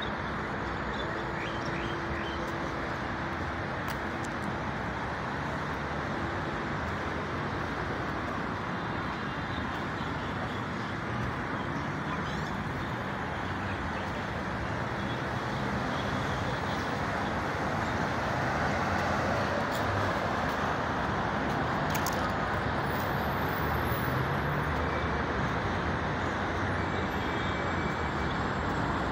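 Steady hum of city street traffic, growing somewhat louder about halfway through.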